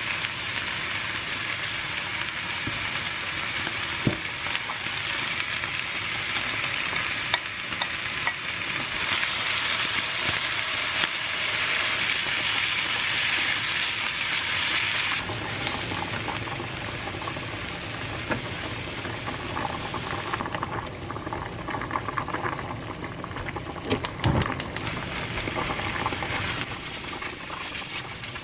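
Tuna, kimchi and vegetables sizzling in a nonstick wok while being stirred with a silicone spatula. The sizzle eases about halfway through, and scraping and a few sharp knocks of the spatula against the pan follow later on.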